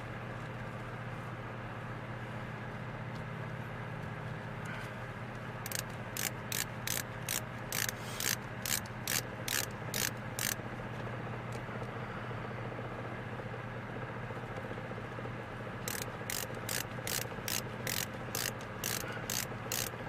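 Hand ratchet clicking as it backs out screws, in two runs of even clicks about two or three a second, over a steady low hum.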